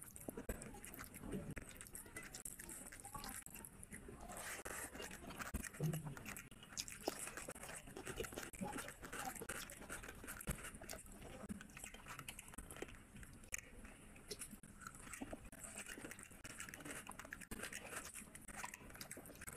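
Close-miked chewing and wet mouth sounds of someone eating curried fish head and rice by hand, with small crunches and irregular clicks as the flesh and bones are bitten and chewed.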